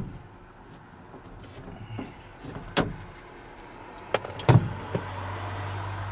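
A few sharp clicks and knocks as old door-panel retaining clips are popped out of a pickup truck's door, the loudest about four and a half seconds in. A steady low hum sets in at that point.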